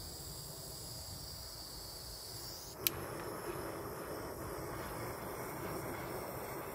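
A gas soldering torch is lit with one sharp click about three seconds in, then its flame hisses steadily.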